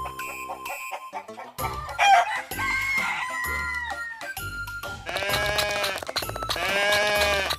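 A rooster crowing once, a long call a couple of seconds in. Then two long wavering calls from another farm animal near the end, over background music with a steady beat.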